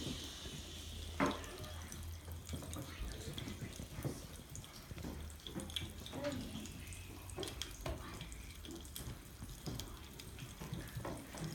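Homemade Frobscottle, a fizzy drink, fizzing, with its bubbles popping in many small, irregular pops and crackles.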